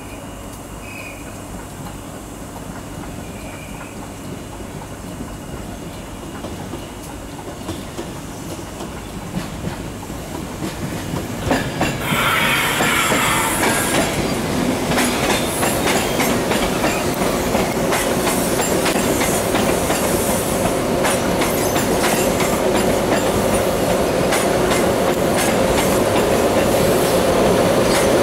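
Class 90 electric locomotive hauling coaches, pulling out slowly: a steady low running hum at first, then from about twelve seconds in it grows louder and keeps building as it draws past, with wheels clicking over rail joints and points and some wheel squeal.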